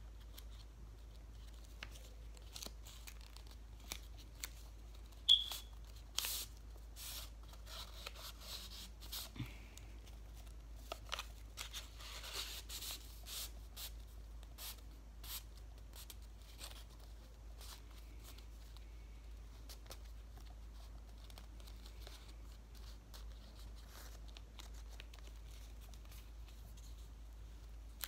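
Sheets of rolled paper rustling and crinkling, with scattered light clicks and scrapes, as a rolled paper blade is slowly pushed into a rolled paper tube by hand. One sharper tap about five seconds in.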